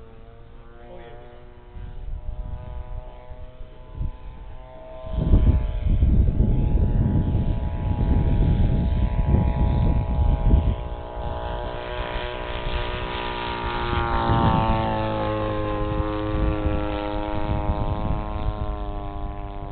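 A radio-controlled Spitfire model's motor, heard from a camera on board. It runs with a steady whine at low throttle, then is throttled up sharply about five seconds in, with propeller wash rumbling on the microphone. Its pitch climbs further during the takeoff run.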